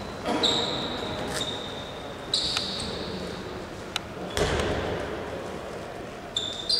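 Indoor handball play on a sports-hall court: repeated short, high shoe squeaks on the floor, a few sharp ball bounces, and a heavier thud about four and a half seconds in, all ringing in the large hall.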